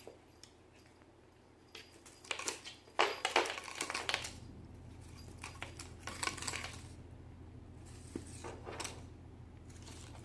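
A cat scuffling and rustling in three spells of play, the first and loudest a few seconds long, over a steady low hum that starts partway through.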